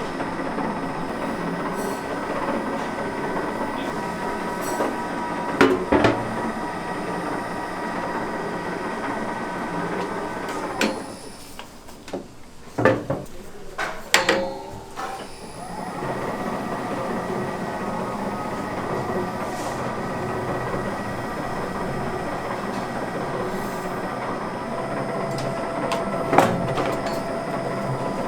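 A kitchen machine running steadily with a mechanical rumble and hum. It cuts out for a few seconds about eleven seconds in, with a few clicks and clatters, then runs again.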